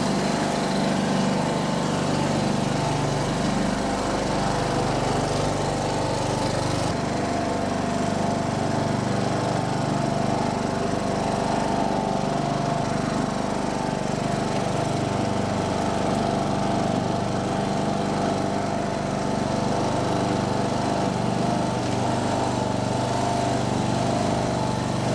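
John Deere riding lawn tractor's engine running steadily under way, with the mower deck off.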